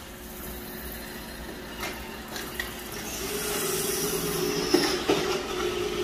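iRobot Roomba i7+ robot vacuum running, a steady motor whir that grows louder about three seconds in, with a few sharp knocks along the way.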